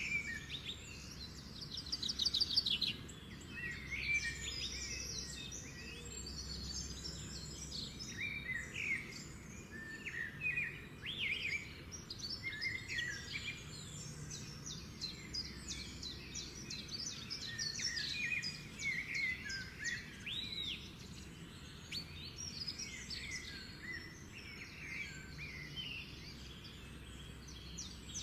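Pet lovebirds chattering, a continuous run of short, high chirps and twitters.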